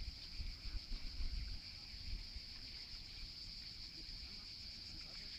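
A steady, high, shrill chorus of cicadas singing without a break. A low rumble, strongest in the first couple of seconds, lies beneath it.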